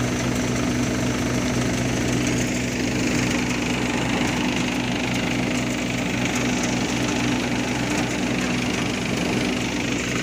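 Engine-driven wheat threshing machine running steadily: a constant low engine hum under a loud, even rushing whir.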